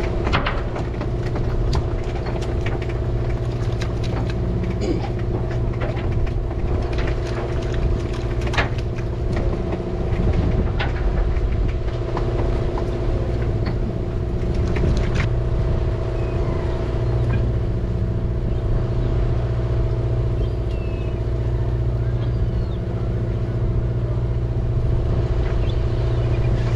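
A party fishing boat's engine running steadily, a low drone that does not change in pitch, with scattered clicks and knocks from the deck.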